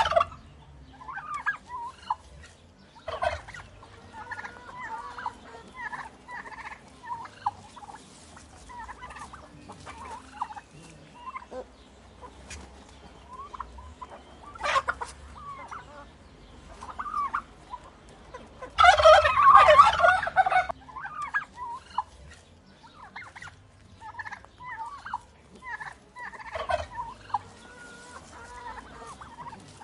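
Turkey gobbling: one loud gobble of about two seconds comes about two-thirds of the way through, with softer short calls and clucks scattered throughout.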